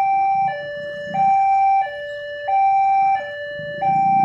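Railway level-crossing warning alarm sounding a two-tone signal, switching between a lower and a higher tone about every two-thirds of a second, warning that a train is approaching. Motorcycle engines grow louder near the end.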